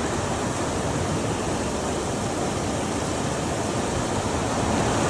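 Heavy thunderstorm rain pouring steadily, a dense even hiss with no let-up.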